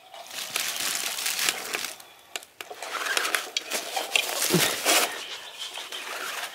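Electronic cat toy switched on: its motor sweeps a feather wand around under a fabric skirt, making an uneven rustling swish with scattered clicks.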